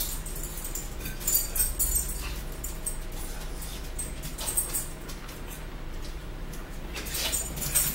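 Mealtime sounds: short scratchy bursts from a fork working a plastic plate and sipping through a straw, over a low steady hum.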